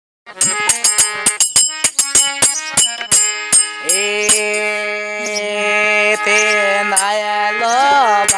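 Music: rapid percussion strokes for about four seconds, then a sustained melodic line that glides up and down in pitch near the end.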